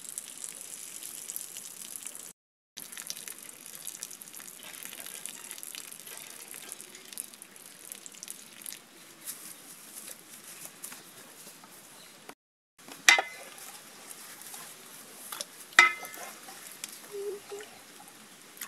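Soaking water poured off a steel bowl of mushrooms, splashing onto grass with a steady hiss. Later, two sharp metal clinks of stainless steel bowls, each ringing briefly.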